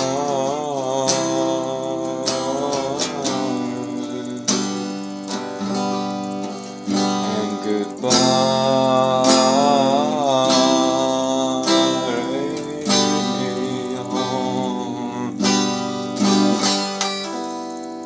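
A man singing with a wavering, sustained voice while strumming chords on an electric guitar, the chords struck about once a second. The playing thins out and dies away near the end.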